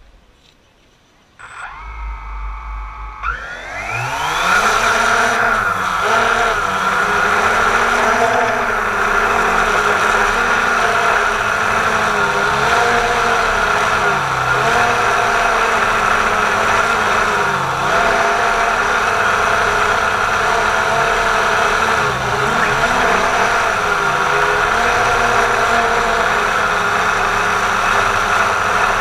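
Quadcopter drone's electric motors and propellers spinning up about a second and a half in, the pitch rising quickly over a couple of seconds. The drone then climbs and flies with a steady, loud whine and buzz whose pitch wavers as the motors adjust. It is heard from a camera mounted on the drone itself.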